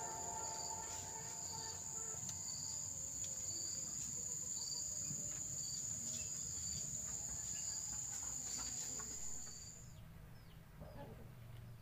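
Outdoor insect chorus: a steady high trill with another insect chirping about once a second. Both stop abruptly near the end.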